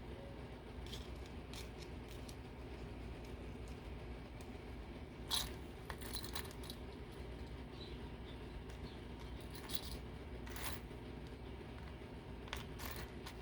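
Scattered small clicks and taps of craft pieces being handled on a work table, the loudest about five seconds in, over a steady low hum.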